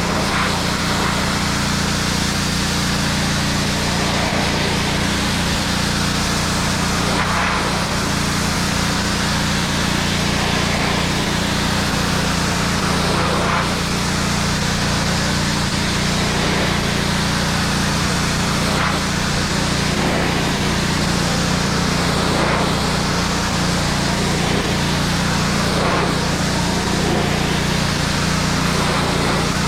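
Pressure washer running steadily, its motor humming under the hiss of the water spray on fence boards.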